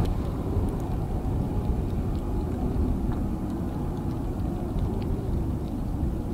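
Steady low rumble of a jet aircraft engine running, with a faint steady tone above it.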